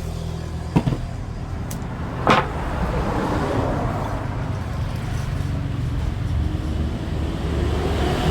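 A motor running steadily with a low hum, with a few sharp knocks in the first two and a half seconds.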